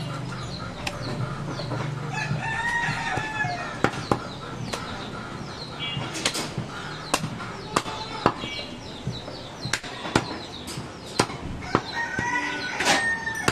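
Large butcher's knife chopping goat meat against a wooden chopping block: irregular sharp knocks, a few a second at times. Chickens call in the background, at about three seconds in and again near the end.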